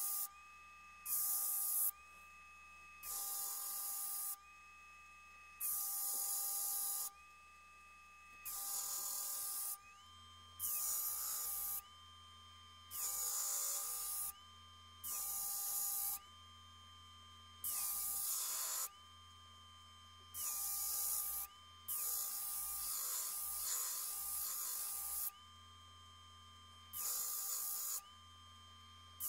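Benchtop disc sander with a 150-grit disc running steadily while the edge of a Damascus-steel cleaver is pressed to it in about a dozen short grinding passes, each about a second long, with one longer pass near the end. This is the edge being refined after reprofiling at 80 grit.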